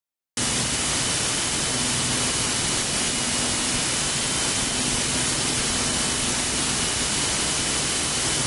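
Steady hiss with a thin, constant high whine, cutting in suddenly a moment after the start: the noise floor of the aircraft's intercom and radio audio feed in flight.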